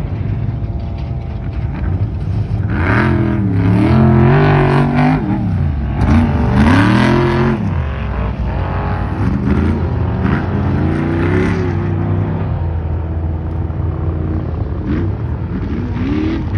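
Off-road race trucks' engines revving hard, their pitch climbing and dropping again several times as the throttle goes on and off over the course, with more than one engine heard at once.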